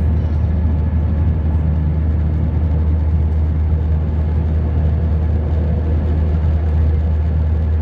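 Steady low drone of a jet airliner's engines and airflow, heard from inside the passenger cabin.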